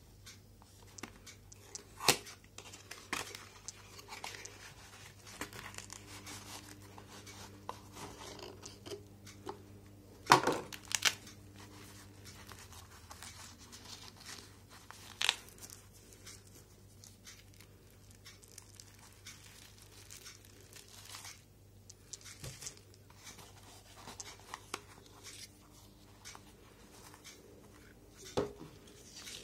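Packaging being handled while unboxing a monocular: a cardboard box, a nylon pouch and plastic wrap rustling and crinkling, with a few sharper clicks and knocks, the loudest about ten seconds in.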